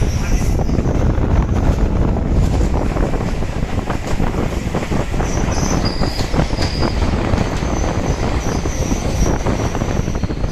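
Train running on rails: a steady low rumble with frequent short clicks from the wheels over the track. From about five seconds in, a thin, high wheel squeal comes and goes.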